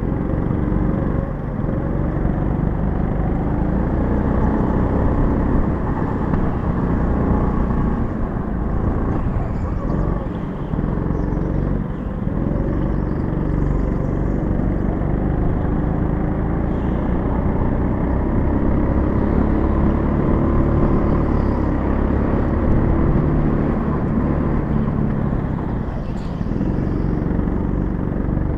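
Go-kart motor running under load through the laps, its pitch rising and falling as the kart speeds up and slows for the corners.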